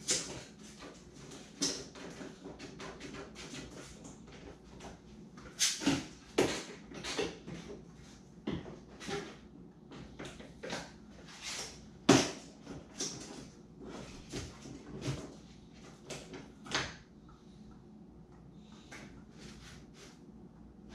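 Small clamps being handled and set on the edge of a foam-and-plywood boat hull: a string of irregular clicks, knocks and scrapes, loudest about six and twelve seconds in.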